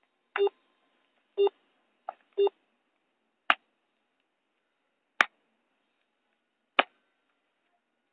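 Mobile phone call being placed: a few short electronic keypad beeps in the first two and a half seconds, then three sharp clicks about a second and a half apart as the call goes through to a forwarding announcement.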